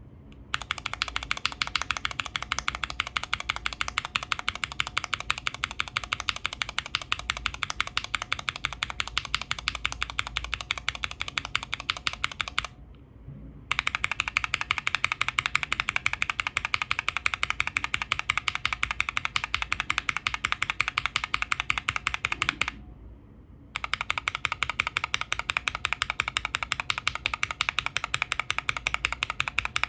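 Mechanical keyboard switches clacking in rapid, steady keystrokes: 2023 Cherry MX Black Clear-Top linear switches with unlubed stock stems and springs. There are three runs, broken by short pauses about 13 and 23 seconds in. The first run has the stock Cherry top housings, the second JWK milky tops, the third Gateron milky tops. The uploader ranks the stock Cherry top as the most muted, with audible spring ping, and the JWK top as the loudest.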